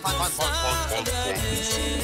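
Cumbia music playing, with a steady pulsing bass beat under a melody line.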